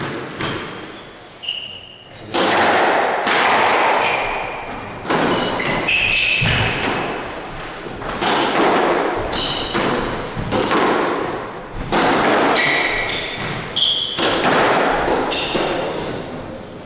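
Squash rally: a rubber squash ball struck by rackets and thudding off the walls about once a second, each hit echoing in the enclosed court, with short high squeaks of shoes on the hardwood floor.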